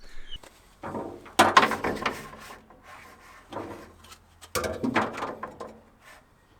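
Hands handling small hard parts, with knocks, clattering and scraping in two main bursts, about a second and a half in and again near five seconds.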